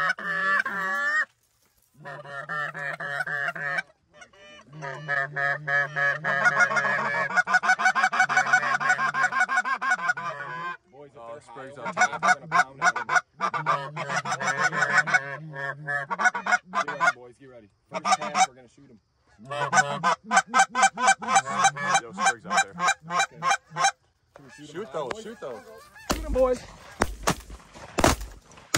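Canada goose calls blown by hunters: fast runs of honks and clucks in bursts lasting a few seconds, with short breaks between.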